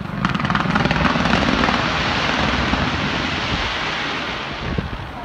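A dense barrage of fireworks fired from the sides of a skyscraper: a continuous rumble of rapid pops and crackles that eases off near the end.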